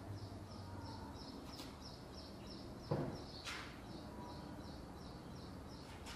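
A bird chirping over and over, about two or three chirps a second, with a single sharp knock about halfway through and a short hiss just after it.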